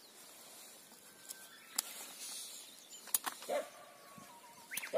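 A dog barking twice, about two-thirds through and again at the end, over a few light clicks and rustles of pea vines being handled during picking.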